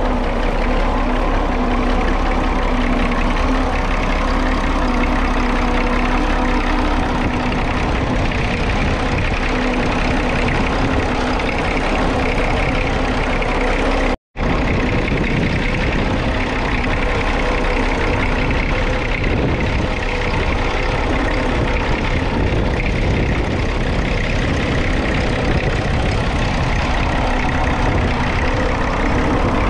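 Perkins P6 4.7-litre six-cylinder diesel in a 1937 Fordson Model N tractor running steadily at an even pitch while pulling a two-furrow trailed plough. The sound breaks off for an instant about halfway through.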